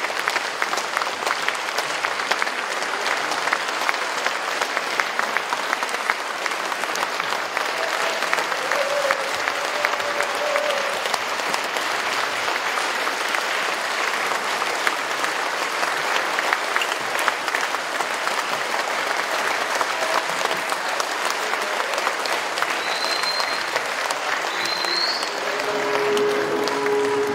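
Audience applauding: many hands clapping at a steady level throughout.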